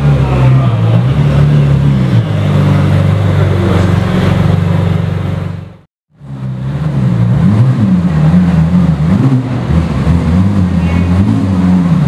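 Ferrari 458 Italia's V8 engine running at low revs as the car rolls slowly, its pitch wavering a little with light throttle. The sound cuts out briefly about halfway through, then returns.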